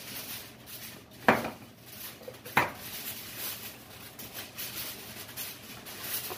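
Food being dished up: serving utensils clinking and scraping in disposable foil trays and against a plastic food container. Two sharp clinks stand out, about a second in and again a little over a second later.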